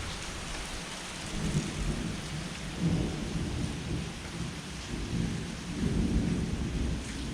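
Steady heavy rain with thunder rolling in low swells several times during a severe thunderstorm.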